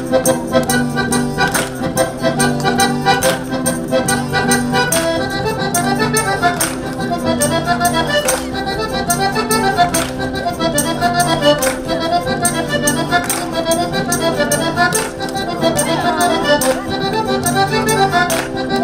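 Accordion playing a lively saltarello, a traditional Italian folk dance tune, over a steady percussive beat.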